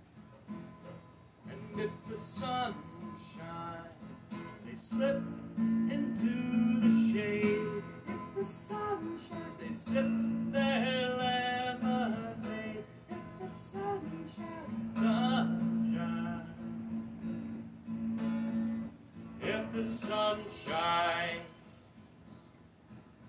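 Acoustic guitar being strummed, chords ringing on and changing, growing quieter near the end.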